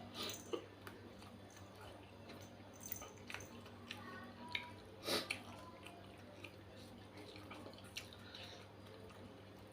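Faint mouth sounds of someone eating: scattered wet clicks and smacks of chewing, a few louder ones, over a faint low steady hum.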